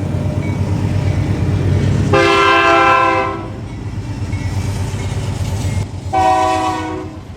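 Altamont Commuter Express diesel locomotive's air horn sounding two blasts, a chord of several tones: a longer one about two seconds in and a shorter one near the end. A low rumble from the train runs underneath.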